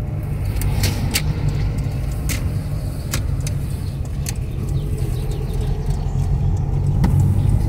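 A car's steady low engine and road rumble heard from inside the moving cabin, with a few scattered sharp clicks or rattles.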